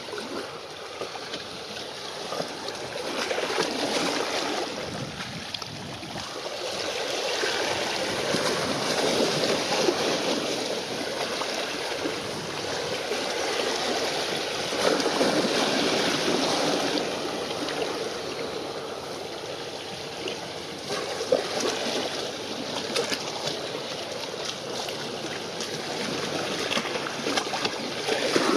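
Choppy sea water washing and lapping near the shore, a steady rush that swells and eases every few seconds.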